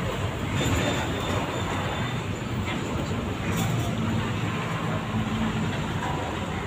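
Steady low rumble of street traffic and running engines, with no single event standing out.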